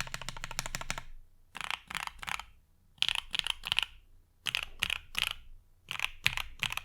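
Custom 7V mechanical keyboard with lubed and filmed OPblack switches on a PC plate, with PBT keycaps, being typed on: a rapid run of keystrokes for about a second, then four short clusters of about three keystrokes each, spaced by pauses.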